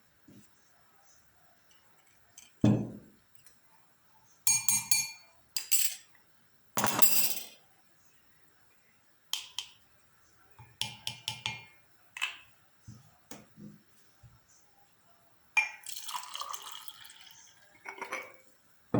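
Kitchen utensils and glassware clinking and knocking while a drink is being mixed: a dozen or so separate clinks, some ringing briefly, with a heavier knock about three seconds in and a longer rattling stretch near the end.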